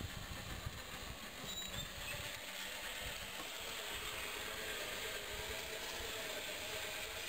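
Electric walk-behind tractor running while its front blade grades dirt: a faint motor whine over a steady hiss, with low rumbling in the first couple of seconds.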